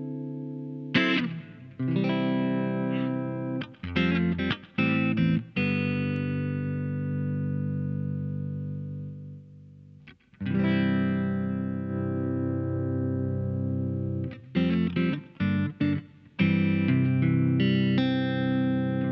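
Electric guitar played through a compressor effect. Some chords ring out with long, even sustain, and others are short choked stabs, with a short break about halfway through and steady strumming near the end.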